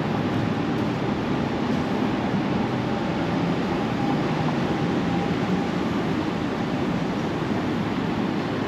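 Steady city street noise, a continuous rumble of passing traffic with no single vehicle standing out.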